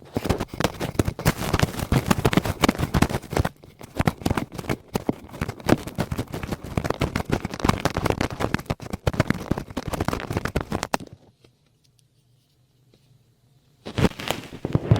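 Close-miked ASMR scratching and rubbing directly on the microphone, a dense run of crackling scrapes. It stops about eleven seconds in and starts again about three seconds later.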